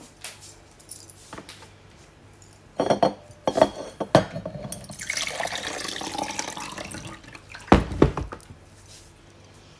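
Glass and containers clinking and knocking as they are handled, then about two and a half seconds of running or pouring water, ending in a heavy thud as something is set down.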